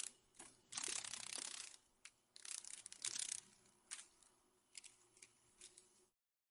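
Faint crunching and rustling in irregular bursts, with scattered sharp clicks.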